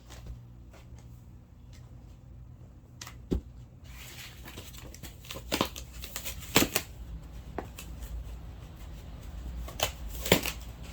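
Cardboard packaging being handled and shifted about, rustling and scraping, with several sharp knocks over a steady low hum.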